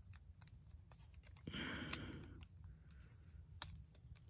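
Faint scattered clicks of the plastic parts of an APC Toys Bossy Flame transforming robot figure being handled as a wing hook is worked into its slot. A soft exhale about a second and a half in.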